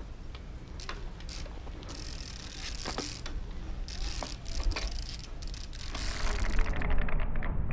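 Trials bike balancing and hopping on a wooden beam: scattered sharp clicks and knocks from the tyres, brakes and frame. From about six seconds in comes a run of rapid ratchet-like ticking from the freewheel that grows louder.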